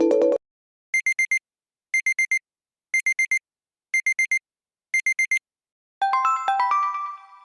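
Amazon Alexa alarm tones: the end of one tone cuts off at the start, then a classic digital alarm-clock beep sounds, four quick high beeps repeated once a second, five times. About six seconds in, a different chime tone begins, a run of quick stepping notes that fades out.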